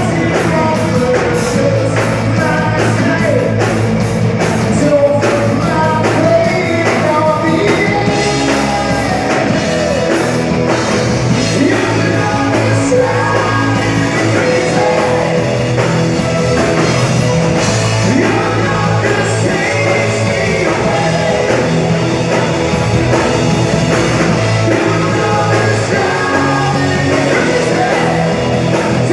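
Loud live rock band playing: electric guitar and drums with a singer.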